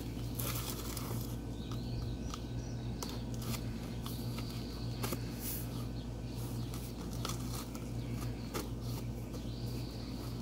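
A box cutter slicing packing tape and scraping along a cardboard box, giving irregular scratches and crackles over a steady low hum. Birds chirp faintly now and then.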